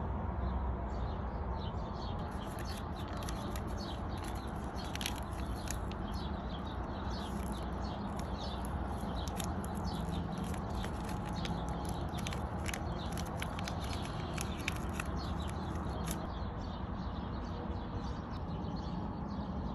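Outdoor ambience: a steady low background hum with many short, high chirps scattered through it.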